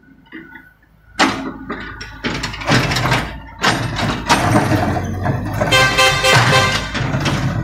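Mini excavator's diesel engine running while its steel bucket digs and scrapes into a pile of broken asphalt, the chunks clattering and grinding, starting suddenly about a second in. About six seconds in there is a brief pitched squeal.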